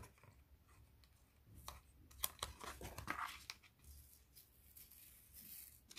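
Masking tape being peeled slowly off the edge of a watercolour-paper postcard: a few faint short crackles and rustles of tape lifting from paper, mostly around the middle.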